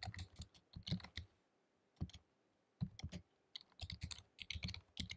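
Typing on a computer keyboard: bursts of quick key clicks, with a pause of about a second and a half near the middle.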